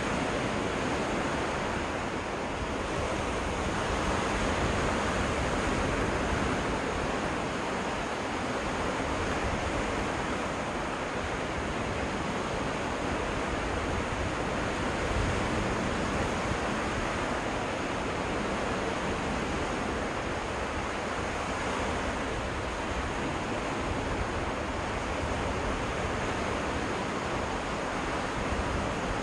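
Surf on a freshwater Great Lakes beach: waves washing ashore in a steady rush that rises and falls slightly.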